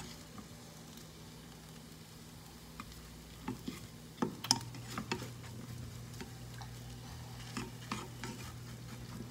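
A plastic spatula scraping and knocking around a nonstick frying pan as eggs are scrambled, over faint sizzling. The scrapes are irregular, few at first and frequent from about three seconds in, the loudest knock about four and a half seconds in.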